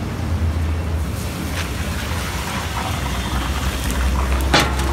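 Hot oil sizzling in a deep-frying kadhai of chicken fry, a steady hiss over a low hum, with a sharp knock near the end.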